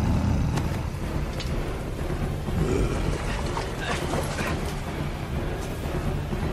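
A film action soundtrack of a giant's attack: a dense, steady low rumble with layered effects and a few faint cries near the middle.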